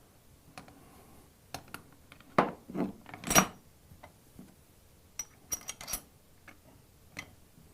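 Steel crimper dies and the hydraulic crimper's fixture clanking and clicking as they are handled and set in place: three heavier knocks a few seconds in, then a quick run of sharp metallic clicks with a brief ring.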